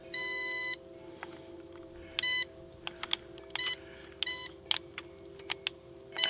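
Electronic beeps from the EXO Cinemaster 2 drone's controls as buttons are pressed to unlock the motors: one longer beep at the start, then three short beeps a second or so apart. Faint clicks fall between the beeps over a faint steady hum.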